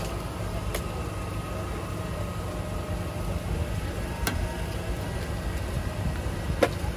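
Eggs being cracked by hand over a griddle: a few sharp cracks, one about a second in, one past four seconds and the loudest near the end. Under them runs a steady low engine-like rumble.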